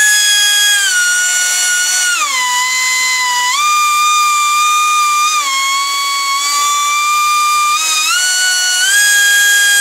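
Kobalt air-powered rotary die grinder running free with no load: a loud, shrill whine with many overtones. Its pitch drops about two seconds in, wavers, then climbs back near the end.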